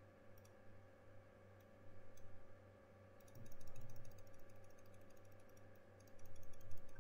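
Faint, rapid runs of small clicks from a computer keyboard and mouse being worked, the densest in the second half, over a steady low hum.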